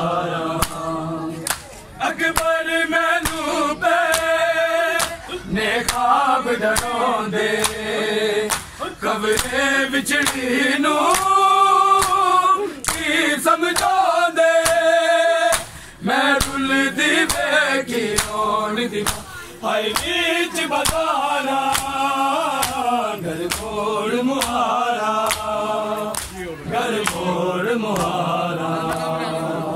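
A group of men singing a Punjabi noha (a Muharram lament) together in long held lines, with sharp regular slaps of hands on bare chests (matam) keeping the beat.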